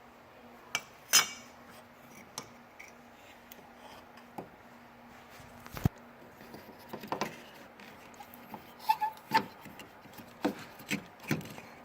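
Scattered light clicks and metallic clinks from the loosened hood latch assembly and small parts being handled, coming more often in the second half, over a faint steady hum.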